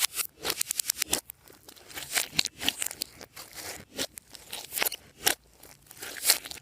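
Glossy slime being squeezed, folded and stretched by hand, giving rapid wet clicks and crackling pops in irregular clusters.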